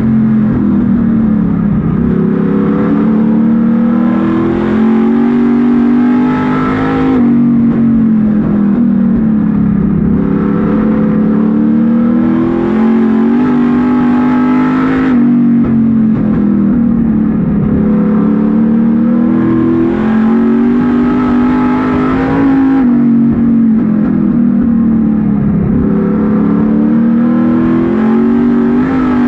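Street stock race car's V8 engine at racing speed, heard from inside the cockpit: revs climb down each straight, then the throttle lifts abruptly and the pitch drops through each turn, in a cycle that repeats about every eight seconds.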